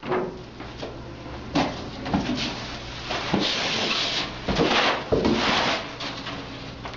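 Cabinet parts being handled and set down while unpacking: a series of separate wooden knocks, with about a second of rustling a little past the middle.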